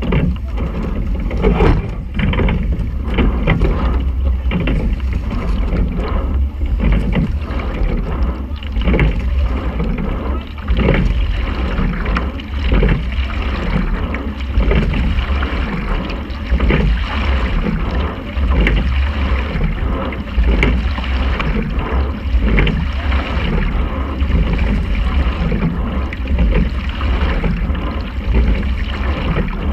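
Quadruple sculling boat being rowed: the stroke sound of oars and water swells and fades in an even rhythm, about once every two seconds, over a steady low rumble.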